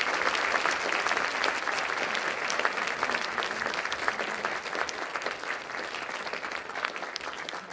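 Audience applauding: many hands clapping, slowly thinning out and getting quieter toward the end.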